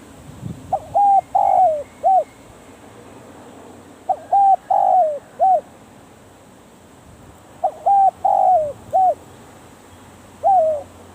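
Spotted dove cooing in repeated phrases of several coos, three full phrases about three and a half seconds apart, with the first note of another near the end.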